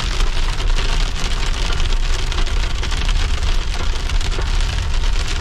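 Hail and heavy rain pelting the roof and windshield of a Kia Sorento SUV, heard from inside the cabin: a dense, unbroken patter of rapid ticks over a low rumble.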